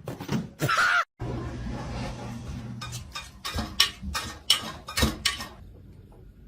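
A short cry, then a run of about eight sharp knocks or clatters over two or three seconds, over a low hum.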